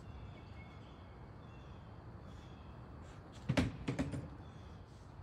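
A short clatter of three or four knocks a little after halfway, as the throttle kit's metal parts are set down on a plastic folding table. Faint bird chirps in the background.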